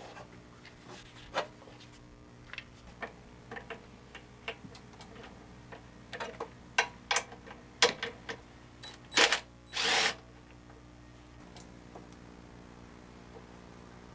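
Scattered clicks and knocks of tools and small engine parts being handled, over a steady low hum. Two short hissing bursts come about nine and ten seconds in and are the loudest sounds.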